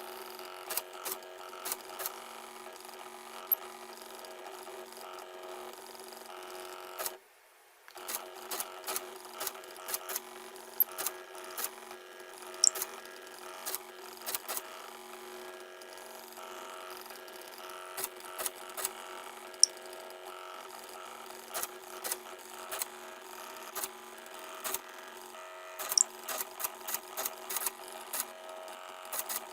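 Mini Arduino CNC drawing machine running: its small stepper motors whine with several steady tones, with frequent sharp irregular ticks over them. The sound drops out briefly about seven seconds in.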